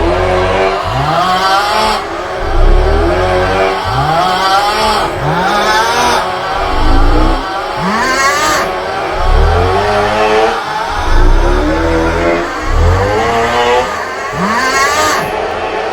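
The 'Aughhhh' snoring meme sound: a man's drawn-out, groaning 'aughhh' snore, repeated again and again with the repeats overlapping, loud and over heavy deep bass.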